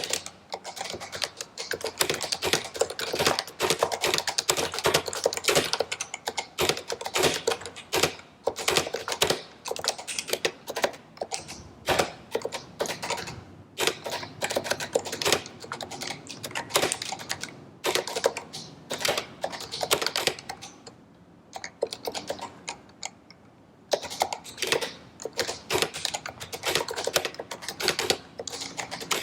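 Typing on a stock HHKB Professional Hybrid keyboard with Topre electro-capacitive switches: fast, continuous keystrokes, with a pause of a few seconds in the middle.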